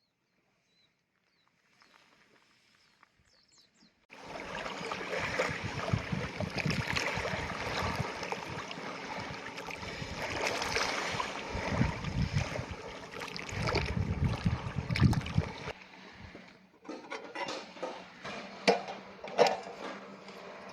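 Near silence for about four seconds, then the sea sloshing and lapping at the shore in uneven surges. It cuts to a thinner, patchier wash with scattered small knocks for the last few seconds.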